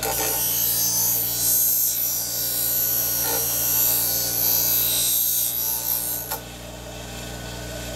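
Steel shear blade held by hand against the spinning wheel of a Twice As Sharp scissor sharpener: a steady high grinding hiss over the machine's motor hum, cutting off abruptly about six seconds in while the motor keeps running. The blade's edge is being hand-ground back to a smooth convex shape.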